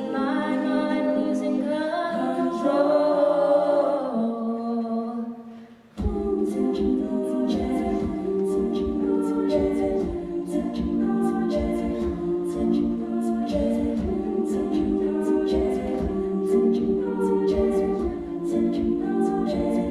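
Treble-voice a cappella group singing sustained chords that fade almost to nothing about five and a half seconds in. The voices then come back in suddenly and fuller over a steady vocal-percussion beat.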